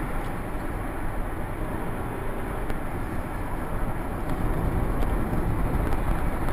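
Steady low rumble of a car driving, engine and road noise heard from inside the cabin through a dashcam microphone.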